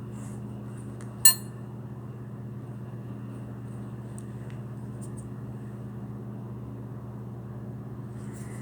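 A metal hand tool gives one sharp, ringing clink about a second in, over a steady low machine hum.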